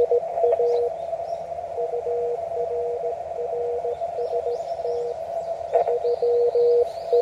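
Morse code (CW) from an amateur radio transceiver: a single mid-pitched tone keyed on and off in dots and dashes, over a steady hiss of receiver noise.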